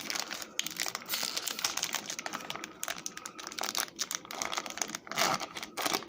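Crinkling and rustling of a foil trading-card booster pack wrapper as the cards are handled and pulled out, with a louder crackle about five seconds in.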